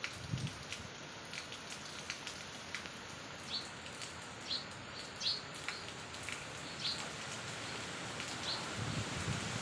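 Steady rain hissing, with scattered drop clicks. A bird gives short falling chirps about five times through the middle, and a low rumble starts near the end.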